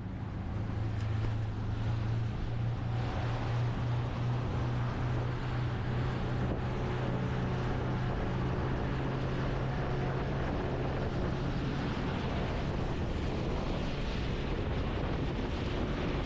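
A boat's engine running steadily, a low drone under way, with a hiss of wind and water over it.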